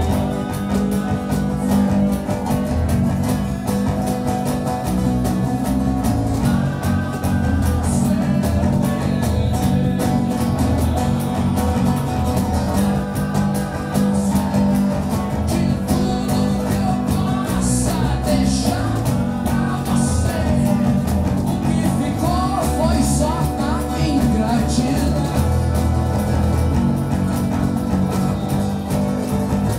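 Live acoustic band performance: a strummed acoustic guitar with a male singer's voice over it.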